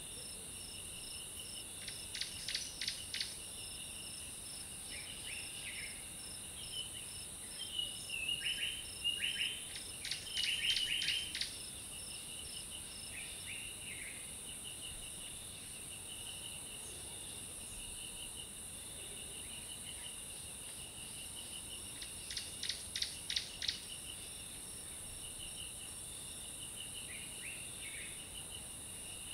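Tropical forest ambience: a steady high insect drone with a fast pulsing insect trill underneath. A bird breaks in with quick runs of sharp notes about two seconds in, again several times around ten seconds, and once more over a second or so near twenty-three seconds.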